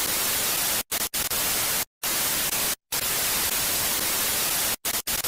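TV static hiss sound effect with glitchy cut-outs: a steady, full-range hiss broken several times by short, abrupt drops to silence.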